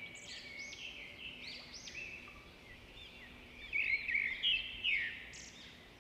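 Birdsong: a songbird's rapid, repeated high chirps and trills, louder in a few bursts about two-thirds of the way through.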